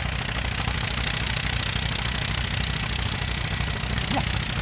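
Tractor engine running steadily at idle with a low, even throb.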